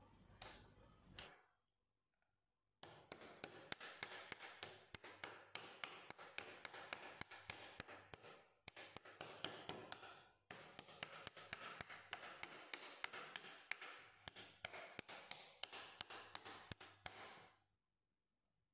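Rapid, steady tapping as raw chicken breast is pounded flat with a flat tool on a wooden cutting board, several taps a second with two short pauses.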